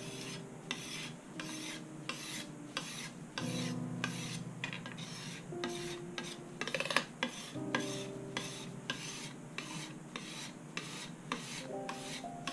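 A flat steel blade scraping along a rosewood guitar fretboard in quick repeated strokes, about two a second, over soft background music.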